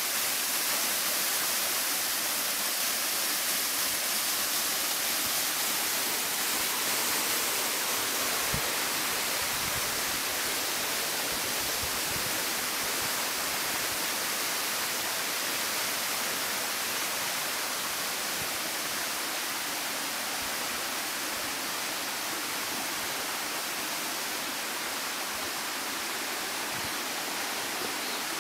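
Small waterfall and stream: water rushing steadily over rocks.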